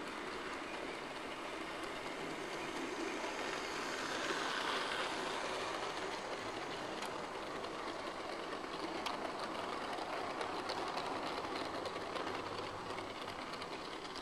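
Bachmann 00 gauge model train, a City of Truro locomotive with Mk1 carriages, running along sectional track: a steady motor-and-wheel whirr that swells to its loudest about four to five seconds in as it passes close, with light clicks of wheels over the rail joints through the second half.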